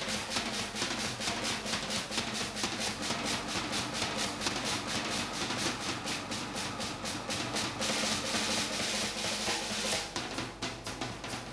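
Percussion music: fast, even drum beats at about seven a second over a steady low drone. A cymbal-like wash swells near the end, then the beating goes on more softly.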